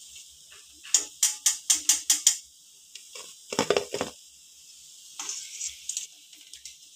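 Freshly fried shankarpali pieces dropping and clattering onto a steel plate, with the steel slotted spoon clinking against the metal. A quick run of about six sharp clicks comes about a second in, then another short clatter near the middle.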